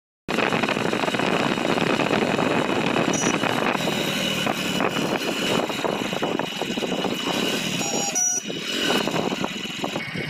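Riding on a motorcycle through road traffic: steady engine, wind and road noise on the microphone, starting abruptly just after a brief silence.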